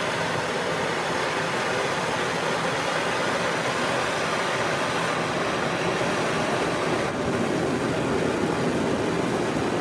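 Nerrad Tools Fire Jet blow torch burning, a steady, even rushing of the gas flame that cuts off just after the end.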